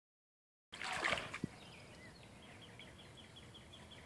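A brief noisy rustle with a sharp click about a second in, then a bird calling faintly in a rapid, even series of short high chirps, about six a second.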